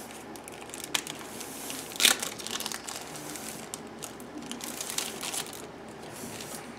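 Crinkling and rustling of packaging as board-game cards are handled, with a sharp click about a second in and a louder one about two seconds in.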